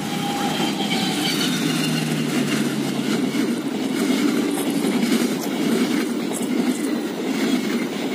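Long-distance passenger train's coaches rolling past on the track: a steady, loud rumble of steel wheels on rails.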